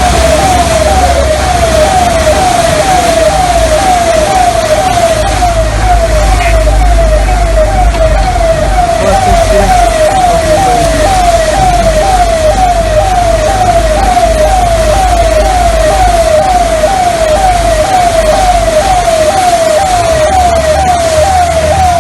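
Electronic siren-like warning tone sweeping down in pitch over and over, about twice a second, over a low rumble.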